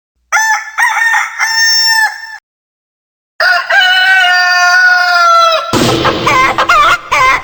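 Rooster crowing sound effect: a short broken call, then after a second's pause one long held crow that sags slightly at the end. Near the end a different wavering sound with lower content cuts in.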